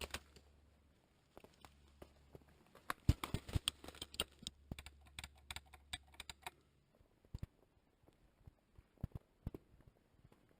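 Footsteps in an abandoned building, with irregular clicks and knocks that come thickest in the middle few seconds and thin out near the end.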